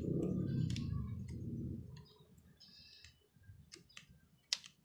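Light metallic clicks and taps of pliers jaws working a small copper piece, with one sharper click near the end. A low rumble underneath fades out about two seconds in.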